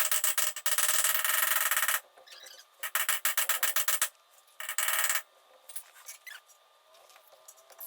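Torch tip cleaners, small knurled wire files, scraping back and forth inside the tiny fuel and air ports of an Edelbrock carburetor: a fine, rapid rasping in several bursts that stops about five seconds in, followed by faint small clicks.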